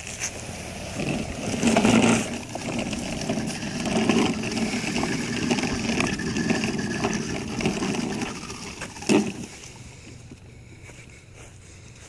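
Briggs & Stratton 550EX 140cc push mower engine running as the mower is pushed along, its wheels moving from the grass onto the concrete sidewalk. There is a sharp knock about nine seconds in, after which it is quieter.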